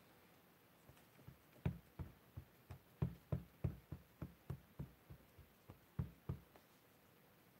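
A clear photopolymer stamp on an acrylic block tapped again and again onto a plastic-cased ink pad to ink it: a run of short, dull knocks, about three a second, starting about a second in and stopping near the end.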